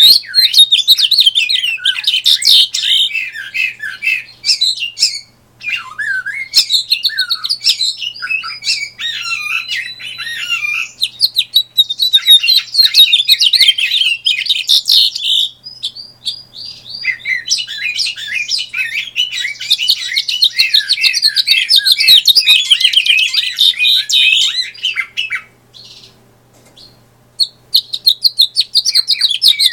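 Captive male house finch singing long, rapid, jumbled warbling songs, several in a row with short pauses between them, the longest pause near the end.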